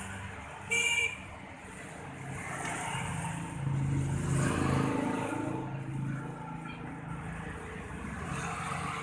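Road traffic passing: a short, high horn beep just under a second in, then a vehicle's engine hum that swells and fades as it passes near the middle.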